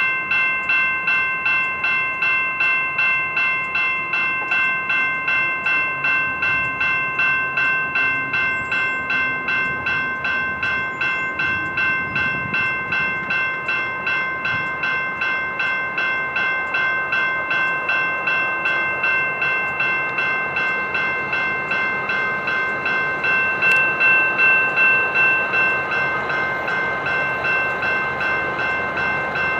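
Railway grade-crossing bell ringing steadily at about two strokes a second, with the rumble of a passing freight train beneath it. The ringing grows a little louder for a few seconds near the end.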